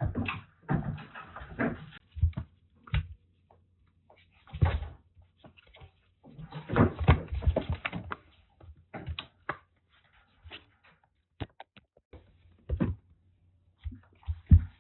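Kittens playing and scuffling: irregular knocks, thumps and rustles in bursts, with short quiet gaps between.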